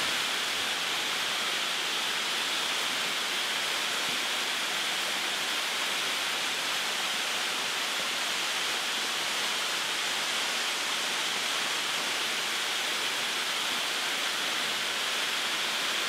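Tall, narrow waterfall spilling down a rock face onto boulders: a steady rushing hiss of falling water.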